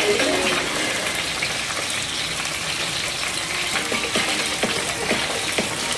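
Escovitch dressing of sliced onions, bell peppers and carrots sizzling steadily in vinegar and oil in a stainless steel frying pan, with a spatula stirring through it and giving scattered light scrapes and taps.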